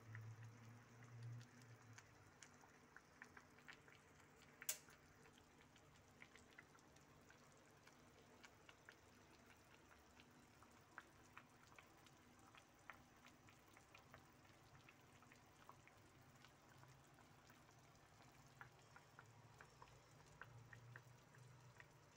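Near silence, with faint, scattered crackling of meat juices sizzling gently in a frying pan and one sharp click about five seconds in.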